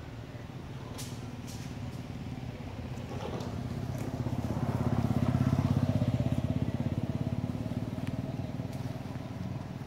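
A motorbike engine passing by, swelling to its loudest about five or six seconds in and then fading away. A couple of sharp clicks sound about a second in.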